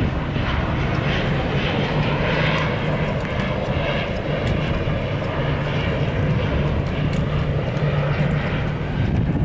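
Fixed-wing airplane flying low overhead on its landing approach, its engines making a steady, continuous noise.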